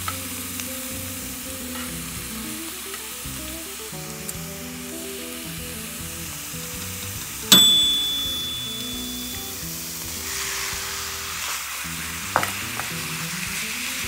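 Minced onion and garlic sizzling in oil in a frying pan, with a sharp ringing clink about halfway through. Near the end the sizzle grows louder as strips of raw steak go into the hot pan. Soft background music plays underneath.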